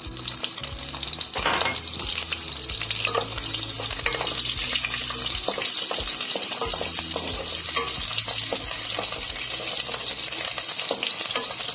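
Whole baby onions sizzling in hot oil in a steel kadhai, with a spatula stirring them and clicking against the pan.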